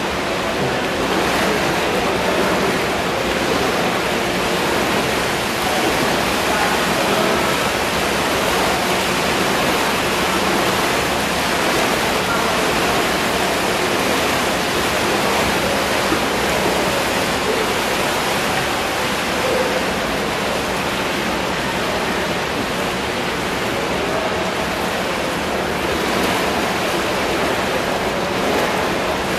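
Water churned and splashed steadily by dragon boat paddles during hard, high-intensity paddling in an indoor paddling tank.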